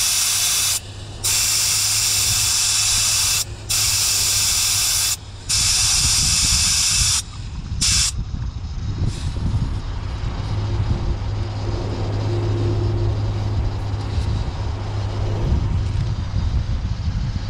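Air hissing out of a car tyre through a tyre deflator with a dial gauge, airing the tyre down, with three short pauses in the flow. The hiss stops about seven seconds in after one last short burst, leaving a low rumbling noise.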